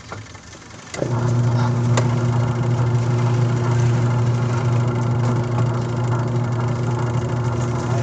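Washing machine's wash motor switching on about a second in and spinning the pulsator in the empty tub with a steady hum. Its gear assembly has been freshly cleaned and regreased.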